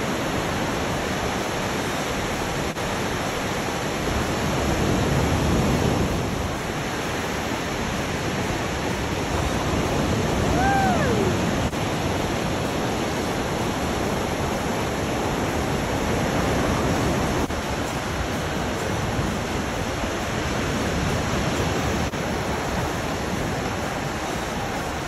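Ocean surf rushing steadily as waves break and wash toward shore, swelling and easing every few seconds. About ten seconds in, a brief high tone rises and falls.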